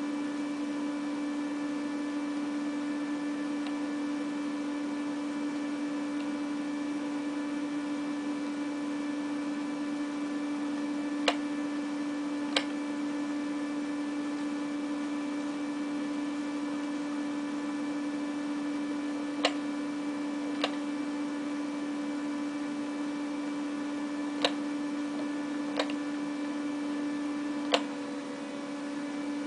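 Steady electrical hum with a low, even tone, broken by seven sharp short clicks in the second half, mostly in pairs about a second and a half apart.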